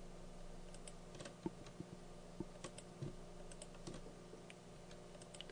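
Scattered light clicks of a computer mouse and keyboard as vertices are shift-click selected, at irregular intervals, over a faint steady low hum.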